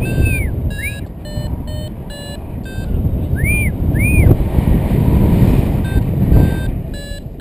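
Wind buffeting the microphone in flight under a paraglider, with a flight variometer beeping in short repeated tones, the sign that the glider is climbing in lift. A few rising-and-falling chirps sound over the wind near the start and in the middle.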